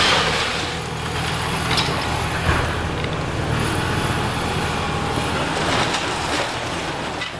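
Heavy demolition machinery's engine running steadily, with a few short knocks and clatter of debris.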